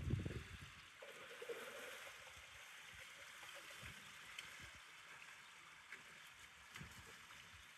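Faint, steady running and lapping water in a polar bear's pool, with soft splashes as the bear swims and wades through the shallows. A brief low thump comes right at the start.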